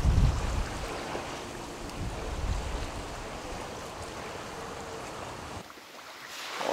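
Wind gusting across the microphone: low rumbling buffets over a steady rush of wind. The sound drops away sharply about a second before the end.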